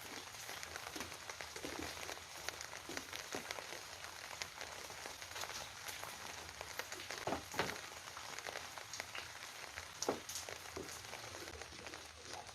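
Pigeons pecking at scattered feed: a dense run of small taps and clicks, with two louder knocks about seven and a half and ten seconds in.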